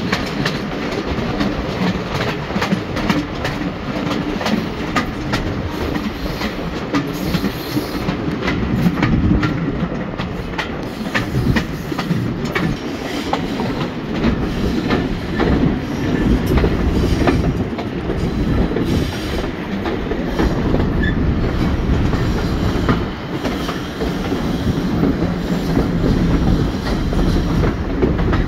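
A passenger coach running along the track, heard from inside its guard's compartment: a steady low rumble of wheels on rail with frequent sharp clicks and rattles.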